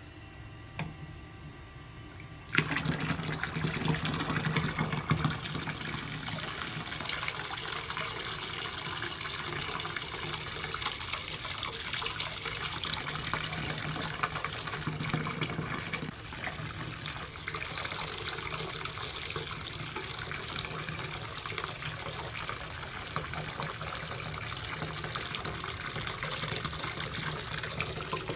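Bath tap running into a tub of bubble bath: after a quiet start, the water comes on suddenly about two and a half seconds in and then pours steadily into the filling bath.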